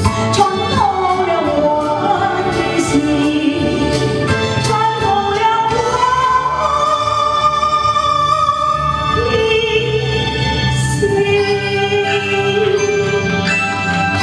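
A woman singing a Mandarin song into a microphone, amplified over a karaoke backing track, with long held notes.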